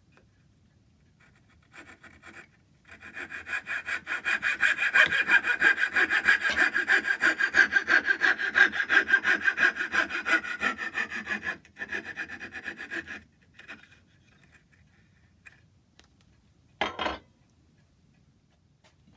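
Hand saw cutting oak in quick, even back-and-forth strokes, about four a second, with a short break before the last few strokes. A single short knock follows near the end.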